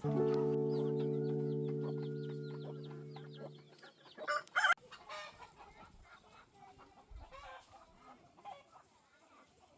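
A held note of background music fades away over the first four seconds while chickens cluck and high chirps repeat. About four and a half seconds in, two louder short squawks; then scattered faint clucking and peeping.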